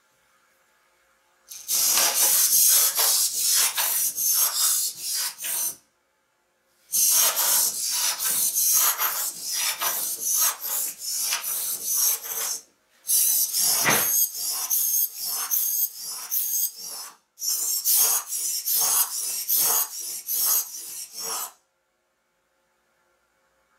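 Jimu Meebot 2.0 robot's servo motors buzzing in quick rasping strokes as it walks under app control. The noise comes in four runs of several seconds each, with brief pauses between.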